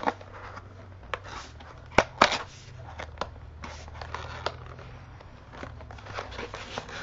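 Cardboard retail box being opened by hand at its end tab: scattered small clicks, taps and scrapes of paperboard as fingers pry the flap loose, the sharpest pair about two seconds in.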